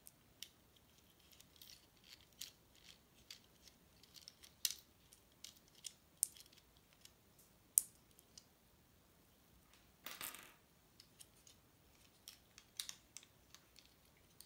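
Small plastic and metal parts of an alarm-clock movement being handled and pried apart by hand: scattered light clicks and taps, with a brief scraping rustle about ten seconds in.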